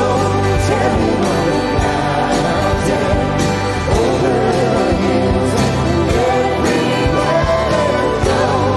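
Children's choir singing a Christmas song with a live band, an acoustic guitar strumming under a steady beat.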